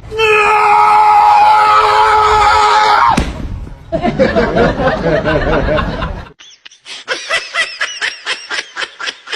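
A person screaming in one long, steady, high-pitched cry for about three seconds, then laughing. Near the end comes a quick run of short laughs, two or three a second.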